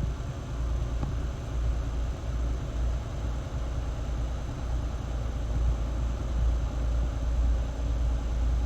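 A motor yacht's inboard diesel engines running steadily at low cruising speed, a deep continuous rumble under a haze of wind and water noise.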